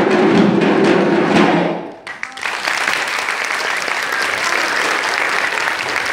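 An ensemble of Azerbaijani nağara drums, played by hand, ends its piece just under two seconds in. Audience applause follows at once and keeps on.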